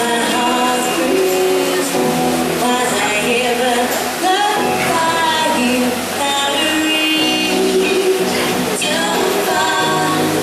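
Music with a singing voice, playing steadily throughout.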